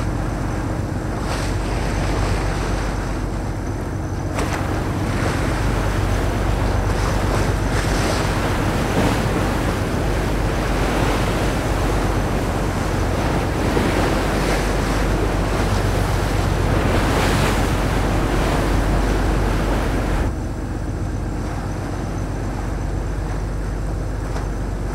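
Sea water rushing and splashing along a small tuna line-fishing boat's hull, with wind on the microphone and a steady low engine hum underneath. The rush of water gets stronger about four seconds in and drops back near the end.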